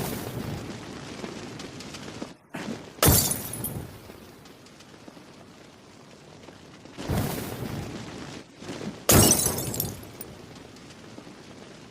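Molotov cocktail sound effect, heard twice: each time a rushing noise lasting about two seconds is followed by a sharp, loud glass-bottle shatter that dies away over about a second.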